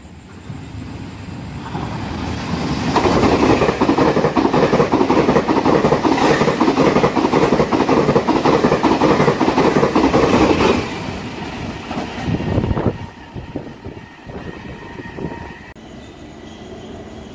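A push-pull Tze-Chiang express train (E1000 series) passes through a station at high speed without stopping. Its rumble builds over the first few seconds into a loud, steady rush of wheels on rail for about eight seconds, then drops off suddenly as the last car goes by. A few loud wheel clicks follow as it moves away.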